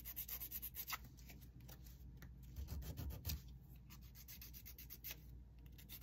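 Nail buffer rubbing back and forth over a fingernail in quick, faint strokes, several a second, in short runs: the natural nail being roughened so press-on nail glue will grip. A few dull bumps come near the middle.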